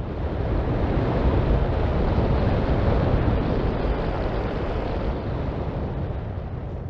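Wind rushing over the microphone in flight: a steady, rumbling rush of air with no tones, swelling in over the first second and slowly fading toward the end.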